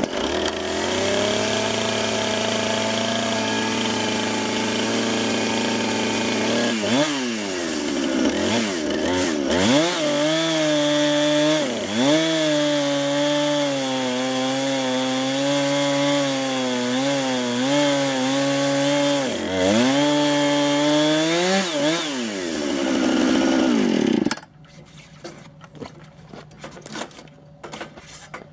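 Husqvarna 455 Rancher two-stroke chainsaw on a chainsaw mill, ripping a cedar log lengthwise with a cross-cut chain. The engine runs at a steady pitch at first, then under load its pitch sags and recovers again and again, and near the end it revs up and cuts off.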